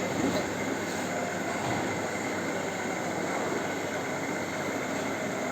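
Milling machine running, its cutter cutting helical gear teeth: a steady, unbroken machine noise.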